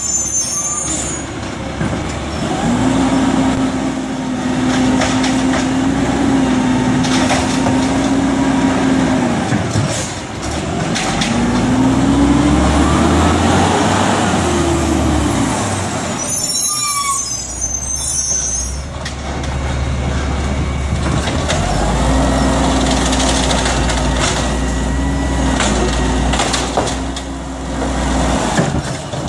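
Automated side-loader garbage truck running, its engine revving up and holding a steady pitch for several seconds twice while the hydraulic arm works a cart, with a rise and fall in engine pitch as it pulls forward in between. A short air-brake hiss comes about two-thirds of the way through.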